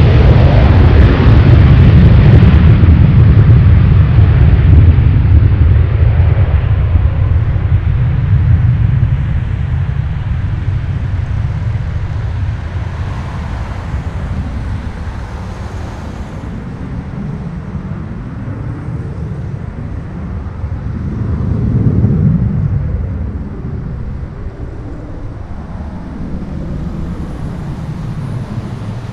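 Gulfstream G650 business jet's twin Rolls-Royce BR725 turbofans at takeoff power, a loud roar as it lifts off. The roar fades steadily as the jet climbs away, swelling briefly once more about two-thirds of the way through.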